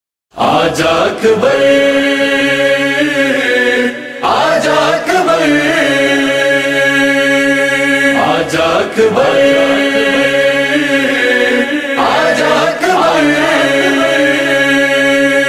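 Chorus of voices chanting long held notes without words, the droning vocal backing of a noha lament. It comes in just after the start and rises and falls in phrases of about four seconds.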